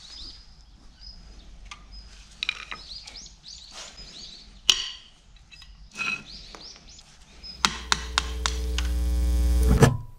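Steel PTO driveshaft yoke and universal-joint spider clinking as they are handled, with a sharp metal clink about halfway through and birds chirping in the background. From about three-quarters of the way in, a low swelling sound with quick ticks grows steadily louder and cuts off abruptly.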